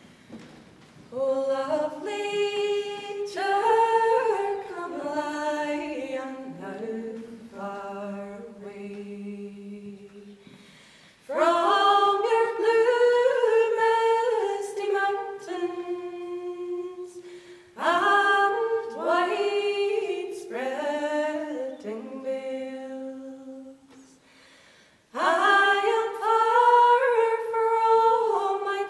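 Three women singing a traditional Irish song unaccompanied, in close harmony, in long phrases with short breaks between them.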